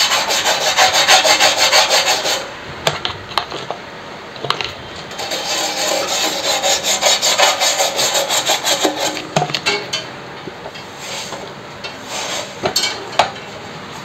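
Toothbrush bristles scrubbing the aluminium freezer box panel with thinner in rapid back-and-forth strokes, cleaning burnt soot off the freshly brazed patch. The scrubbing comes in two spells, with quieter light scraping and clicks between and after.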